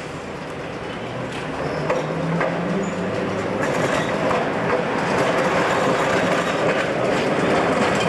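Melbourne W class tram approaching and passing close, growing steadily louder, its steel wheels clicking over the rail joints and junction.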